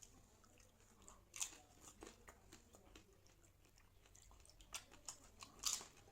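Crisp golgappa (pani puri) shells crunching and cracking, a few sharp crackles spread out, the loudest near the end.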